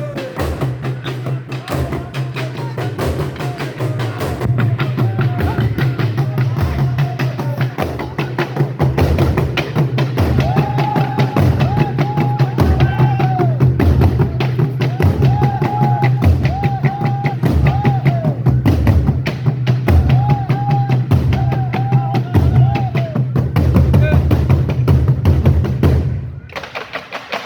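African drum ensemble playing a fast, dense rhythm over a steady deep bass-drum pulse, with repeated high calls riding over it through the middle stretch. The drumming drops away suddenly about a second before the end.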